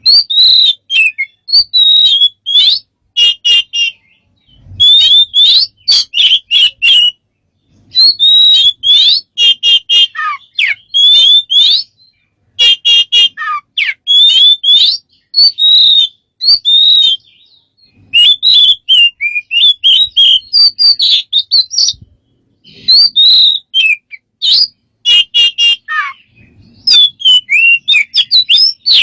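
A bird singing loud phrases of sliding whistles, chirps and quick repeated notes, each phrase a second or two long with short pauses between.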